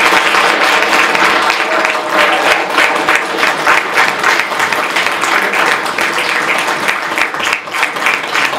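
Audience applauding, a dense, steady clapping of many hands that continues throughout.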